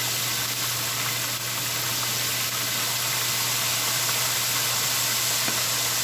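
Chicken breast frying in hot oil: a steady sizzling hiss over a low hum.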